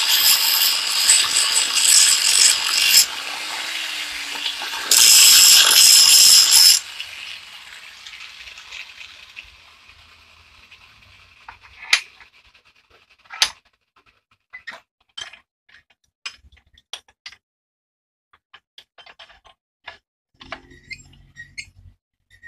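Angle grinder cutting into the steel of an adjustable wrench held in a vise. It grinds loudly, eases briefly, bites again, and cuts off about seven seconds in, winding down. After that come scattered sharp metal clicks and taps as the wrench is handled in the vise.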